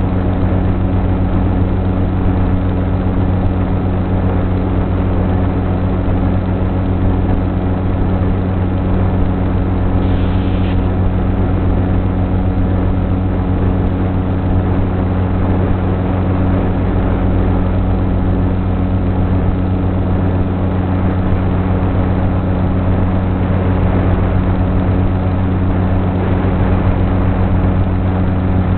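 Electric motor and propeller of a Sonic Model AR Wing flying wing in flight: a loud, steady drone holding the same pitch throughout, under a constant rush of air noise.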